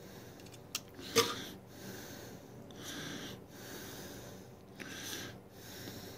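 A hand crimping tool clicks sharply about a second in as it crimps a ring terminal onto a wire. Close, heavy breathing comes in slow swells about two seconds apart.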